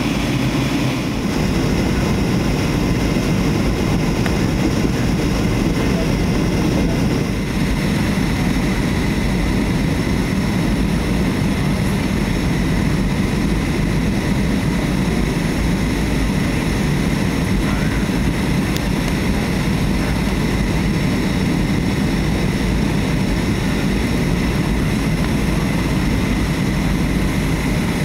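Steady jet airliner cabin noise: a constant engine drone and rushing air, heard from inside the passenger cabin.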